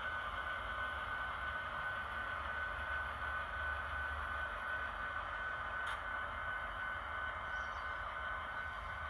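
HO scale model diesel locomotive (Kato SD70MAC) running slowly along the track: a steady motor whine over a low hum from the wheels on the rails, with one faint click about six seconds in.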